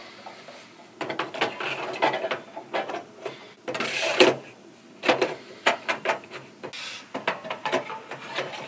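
Metal channel modules being handled in a vintage analog mixing console's metal rack frame: irregular clicks, clacks and scraping of metal on metal, starting about a second in.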